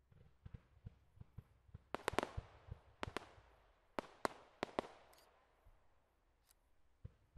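Aerial fireworks firing. A quick run of dull low thumps is followed by sharp bursting cracks, each with an echoing tail: two about 2 s in, one about 3 s in, and four between 4 and 5 s. Softer thumps follow near the end.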